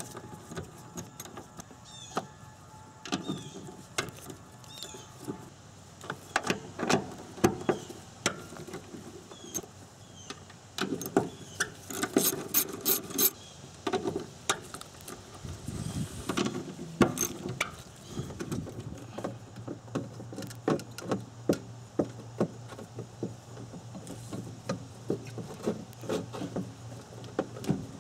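A hand ratchet with an 8 mm socket unscrewing the small bolts of a fuel pump access cover: repeated runs of ratchet clicks and clinks of metal on metal, densest about halfway through. A low steady hum sets in about two-thirds of the way through.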